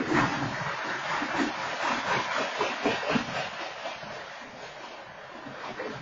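Freight train cars rolling past: a steady rushing rumble of wheels on rail with irregular knocks and clatter, easing a little near the end.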